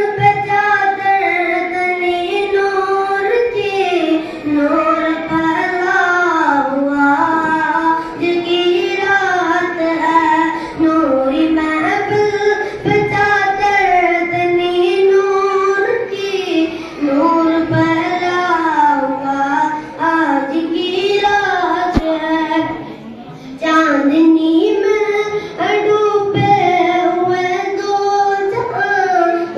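A boy singing a naat solo into a microphone, a slow melodic line with long held, ornamented notes and a brief pause about three-quarters of the way through.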